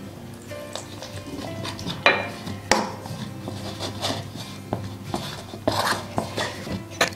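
A steel spoon scraping and knocking against a plastic bowl while stirring flour and water into a batter: irregular sharp clicks and scrapes, the loudest about two seconds in. Background music plays under it.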